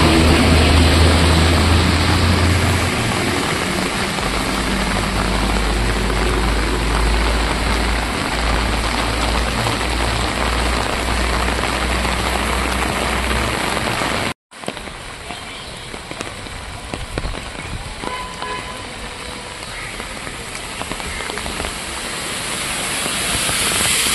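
Heavy rain falling on a waterlogged street, with a vehicle engine's low rumble under it for the first half. The sound drops out for an instant just past halfway, and after that the rain is quieter.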